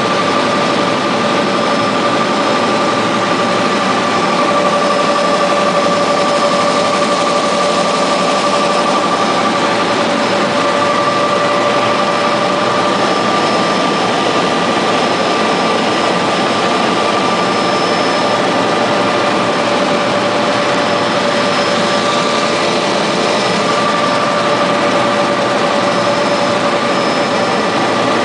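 OH-58 Kiowa helicopter's turbine engine and rotor system heard from inside the cockpit in flight: a loud, even roar with a steady high whine running through it.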